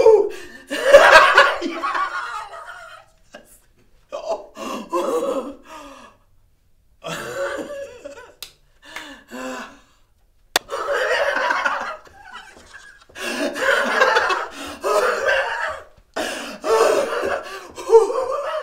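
A man's exaggerated wordless outbursts: loud laughing and yelling in bursts of a second or two with short pauses between, and one sharp click midway.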